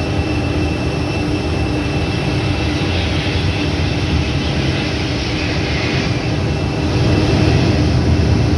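Boeing 757 cargo jet on its landing roll, heard from beside the runway: a steady jet engine noise with a low rumble and a thin whine, growing louder about seven seconds in as the aircraft draws nearer.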